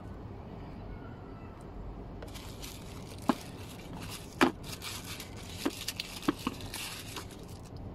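Tissue-paper packaging rustling and crinkling as it is handled and pulled out of a box, starting about two seconds in, with several sharp clicks and taps from the box and its contents.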